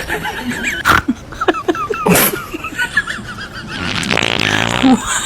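Fart noises: short sudden ones about one and two seconds in, and a longer buzzy one near the end.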